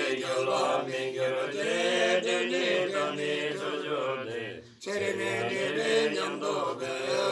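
Buddhist monks chanting prayers together in low male voices, a continuous recitation with one short break for breath about two-thirds of the way through.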